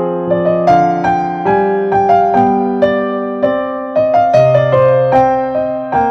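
Background music: an electric piano playing a gentle melody over chords, the notes struck at an even pace and fading between strikes.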